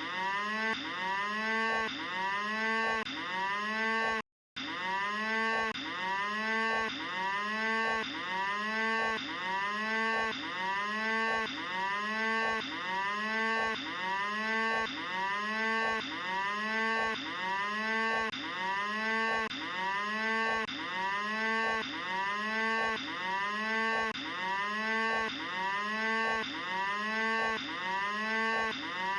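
Cattle mooing over and over, one pitched call about every second in a very even repeating pattern. The sound cuts out completely for a moment about four seconds in.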